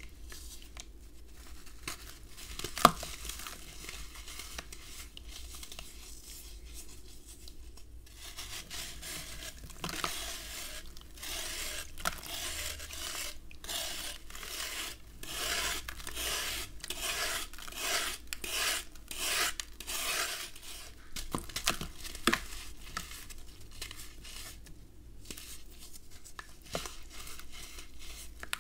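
Compressed red sand block being shaved with a serrated plastic knife: a run of rasping scraping strokes, about two a second, through the middle. Softer crumbling of the sand by hand before and after, with a single sharp click about three seconds in.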